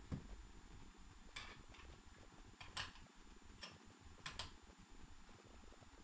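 Faint, scattered clicks and taps of metal mounting brackets being handled and fitted by hand onto a laptop hard drive, about half a dozen over a few seconds.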